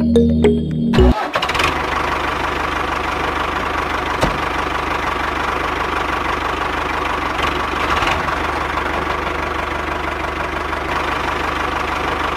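Music stops about a second in, and an engine starts and runs steadily at idle with a fast, even knocking pulse, with a light click about four seconds in.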